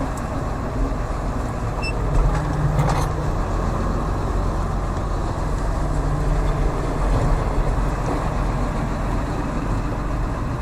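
Tractor engine running steadily under way, heard from the driver's seat, with a short louder noise about three seconds in.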